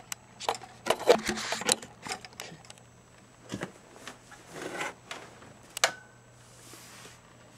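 Irregular clicks, light knocks and rustling from handling a battery-powered cat wall clock as it is put up, with a low steady hum underneath. A cluster of clicks comes about a second in, then single sharper clicks.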